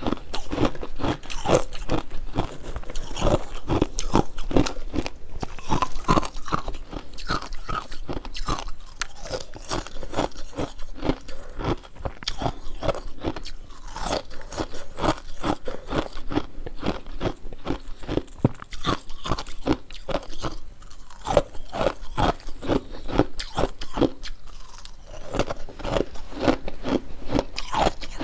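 Ice formed from a humidifier being bitten and chewed, with many sharp crunches in quick, irregular succession.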